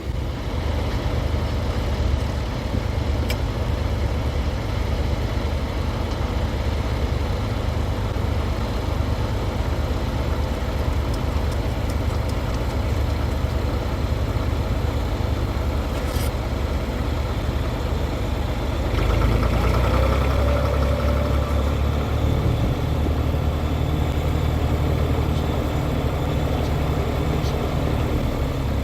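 Vintage tractor engine running steadily while ploughing in heavy mud, getting louder about two-thirds of the way through.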